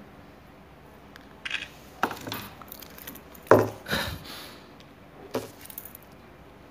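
Handling noise close to the microphone: about five knocks and clatters, with the loudest about three and a half seconds in.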